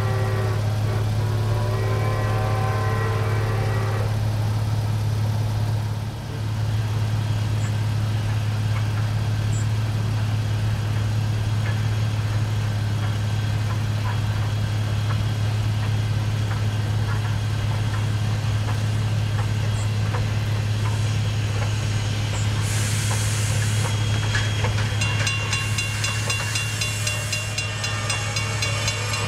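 A steam locomotive whistle sounds a steady chord for about four seconds at the start, over a steady low drone that runs throughout. About three quarters through there is a short hiss of steam as the 2-6-0 Mogul steam locomotive slows to a stop, and steady whistle-like tones sound again near the end.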